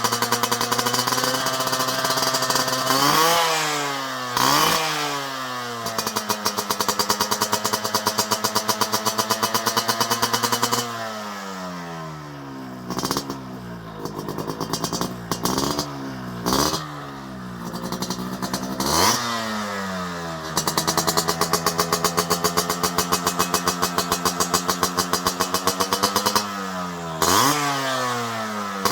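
Yamaha RX100's two-stroke single-cylinder engine idling, blipped sharply on the throttle: two revs about three to five seconds in, a quick run of several blips through the middle, and two more near the end, each rising and falling back to idle.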